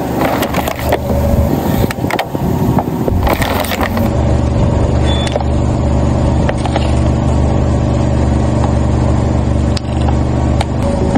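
Car engine idling with a steady low hum that settles in about four seconds in. Before that come scattered sharp crackles and clicks.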